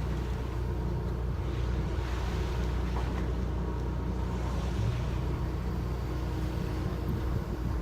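Boat engine running at a steady low drone.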